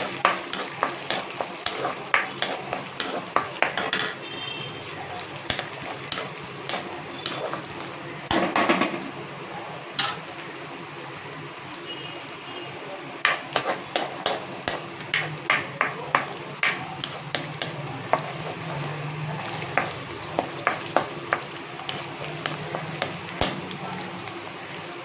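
Curry leaves, garlic and ginger sizzling in hot oil in a kadai, with a spatula scraping and clicking against the pan in runs as they are stirred and sautéed.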